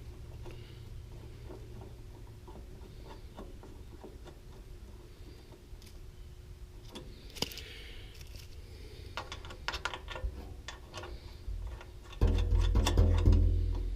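Handling noise: scattered light clicks and taps over a low steady background, then a louder low rumble for about the last two seconds.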